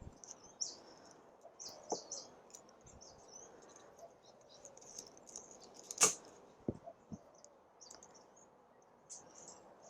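Faint rustling and small clicks of hands working a succulent to cut off a pup (offset). One sharp snap about six seconds in is followed by two soft knocks.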